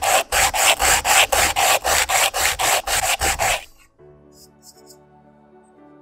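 Coconut shell half rubbed back and forth on sandpaper wrapped around a block, sanding it flat: rasping strokes at about four a second. The sanding stops about three and a half seconds in, and soft background music follows.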